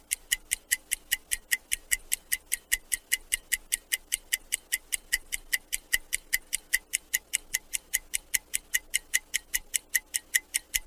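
Clock-ticking timer sound effect: even, sharp ticks at about four to five a second, counting down a timed challenge.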